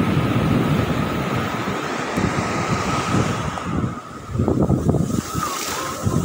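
Sea wind buffeting the phone's microphone in uneven gusts, over the wash of surf breaking on a sandy beach.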